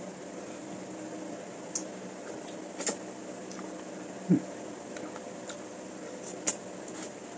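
A person eating: a few sharp clicks and smacks and a short low mouth sound about four seconds in, over a steady electrical hum.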